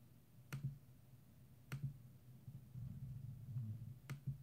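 Three sharp computer clicks, a little over a second apart, as a list randomizer is re-run click after click. A faint low hum lies beneath them.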